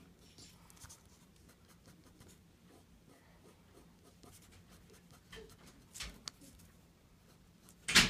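Fine-tip ink pen scratching faintly across paper in many short hatching strokes. A sharp knock near the end is the loudest sound.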